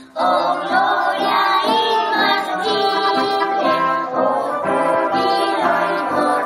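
Brass band music playing the accompaniment of an anthem.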